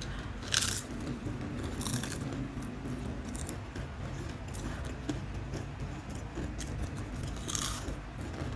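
Mister Potato Daebak Ghost Pepper potato chips, thick and coarse-textured, crunched and chewed by two people eating at once. Sharp bites stand out about half a second in, at about two seconds and near the end.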